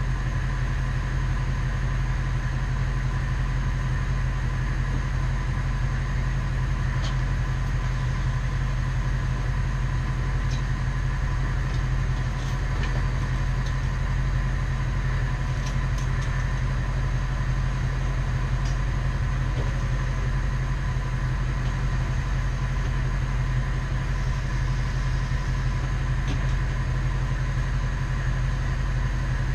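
A 1996 bucket truck's engine running steadily and evenly, with a few faint clicks over the top of it.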